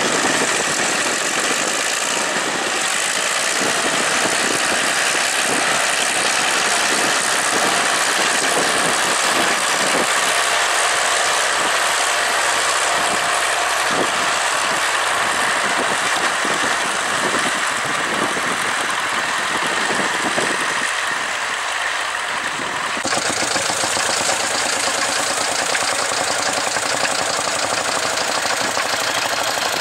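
Diesel engine of a Dutra D4K-B four-wheel-drive tractor running steadily under load as it pulls a multi-furrow plough. About 23 seconds in, the sound changes abruptly to another, smaller tractor's engine running as it ploughs.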